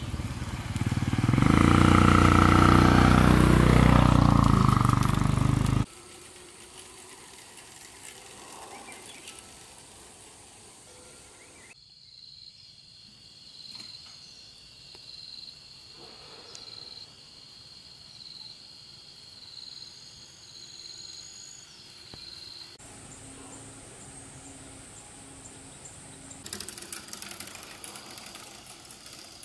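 Small motorbike engine passing close by, loud for about five seconds and then cut off suddenly. Faint ambience follows, with a steady high tone for about ten seconds in the middle.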